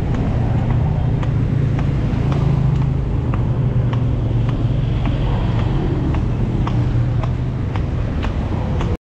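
Street traffic close by: a steady low engine hum with road noise, and faint ticks about twice a second. The sound cuts out abruptly near the end.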